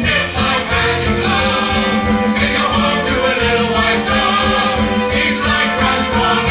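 Musical theatre song: voices singing together over a band with a steady beat.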